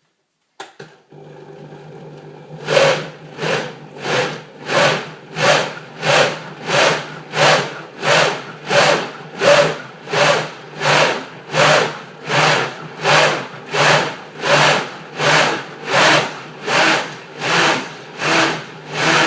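Vitamix blender pulse-blending bananas into a thick smoothie. The motor hums at first, then from about three seconds in it surges over and over, about three surges every two seconds.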